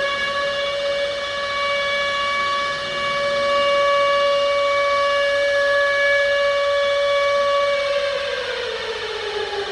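Civil defense siren sounding an attack warning for inbound nuclear missiles. It holds one steady wailing tone, then its pitch starts to fall about eight seconds in as it winds down.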